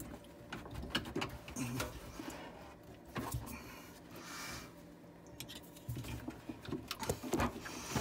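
Handling noise as a rubber dishwasher drain hose and its clamp are worked onto a garbage disposal's inlet: scattered small clicks, rubs and a short rustle, over a faint steady low hum.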